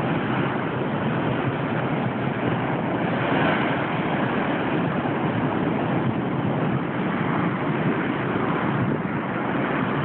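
Rough winter ocean surf breaking and churning against a seawall, a steady rush of water noise with no distinct single crash.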